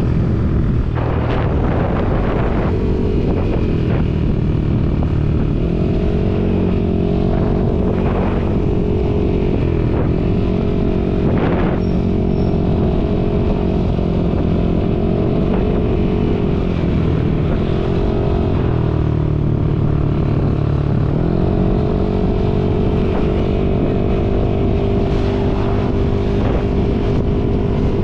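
Yamaha Aerox 155 scooter engine running at road speed, its note dipping and rising again several times as the throttle is eased and reopened, with wind buffeting the microphone.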